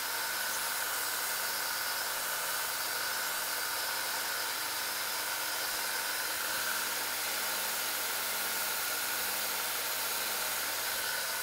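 Combined belt and disc sander running steadily, with a faint steady whine over an even whirring hiss, while a lump of dried silicone is held against the spinning sanding disc and then the sanding belt to clean the abrasive.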